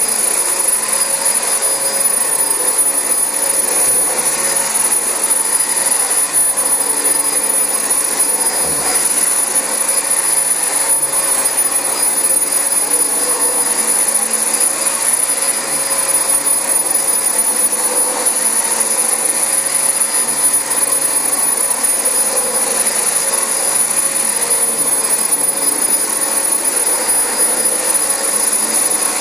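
Dyson DC25 upright vacuum cleaner running steadily while vacuuming carpet: a constant rush of suction air with a thin, high steady whine on top.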